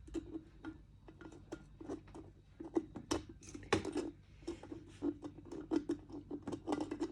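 Irregular small clicks and taps, several a second, from a screwdriver and hands working on an electric kettle's parts as it is taken apart.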